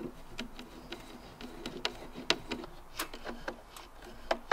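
Hand screwdriver driving screws through a security camera's plastic mounting bracket into the soffit: a string of small, irregular clicks and ticks.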